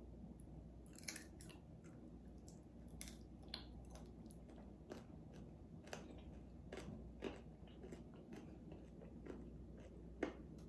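Close-mouthed chewing of crunchy air-fried pig's ear, faint, with irregular sharp crackles of the crisp skin breaking between the teeth.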